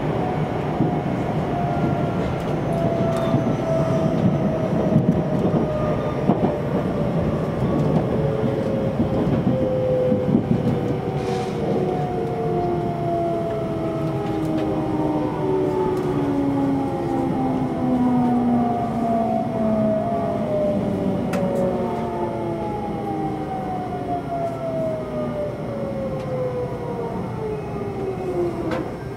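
JR Central 373 series electric train braking into a station, heard from inside the car: the motor whine falls in pitch as several tones glide down together, over steady wheel and running noise.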